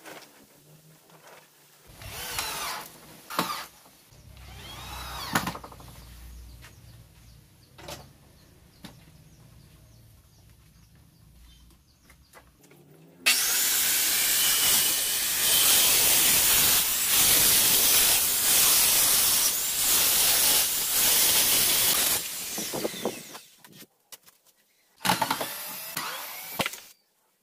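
Electric circular saw ripping a long wooden board lengthwise for about nine seconds, then spinning down. Before it come a few knocks from handling the board, and near the end a cordless drill runs briefly.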